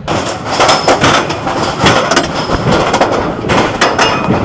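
Steel roller coaster ride noise: loud rushing wind mixed with the rapid rattling and clatter of the coaster train on its track.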